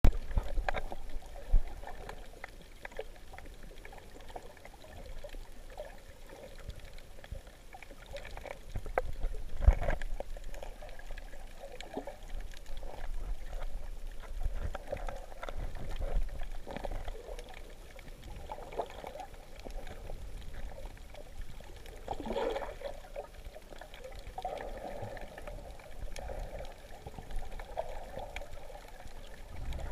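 Water sloshing and bubbling around a camera filming underwater while snorkeling, a shifting dull wash of sound with a couple of short knocks.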